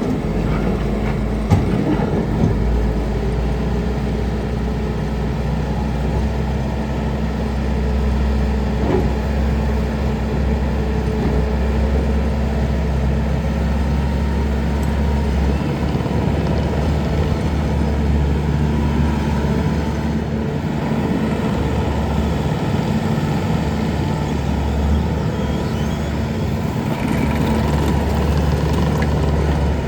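Bobcat T770 skid steer loader's diesel engine running steadily, with a single sharp click about one and a half seconds in.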